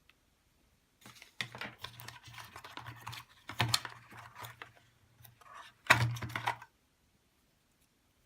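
Close handling noise from a smartphone and its packaging: a quick run of clicks, taps and rustles starting about a second in, with two louder knocks near the middle and near the end, then it stops abruptly.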